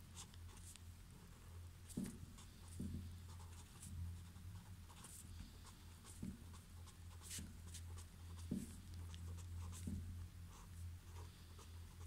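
Pen writing and drawing on paper: faint, irregular short scratches and taps as lines and letters are put down, over a steady low hum.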